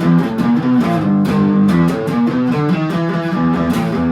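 Guitar strumming chords in a steady rhythm.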